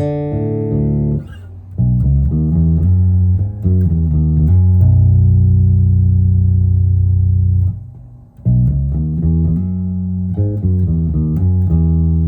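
Six-string Ibanez BTB866SC electric bass played through an Ampeg BA-115 bass combo amp: a run of plucked notes, then a long held low note, a short break near eight seconds, and a quicker run of notes.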